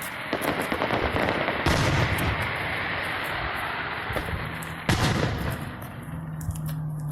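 Fireworks going off: rapid pops that thicken into a dense crackle for a few seconds, with a sharp bang about five seconds in.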